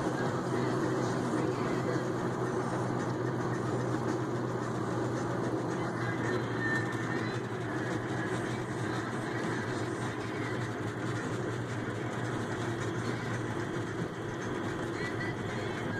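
Steady engine and road noise of a moving vehicle heard from inside the cabin, with a constant low hum.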